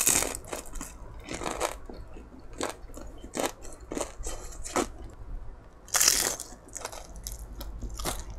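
Bites into a battered, deep-fried chili pepper (gochu-twigim): a loud crunch of the fried coating right at the start and another about six seconds in, with crisp chewing crunches between.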